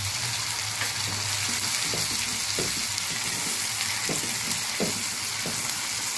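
Ginger paste and chopped tomato sizzling steadily in hot oil in a nonstick kadai while being stirred with a spatula, with a few soft knocks of the spatula against the pan.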